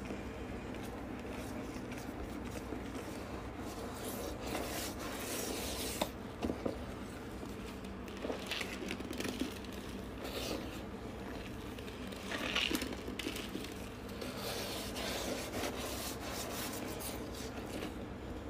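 A sponge pad scrubbing the inside of a toilet bowl in irregular rubbing and scraping strokes, with a few sharper knocks about six seconds in.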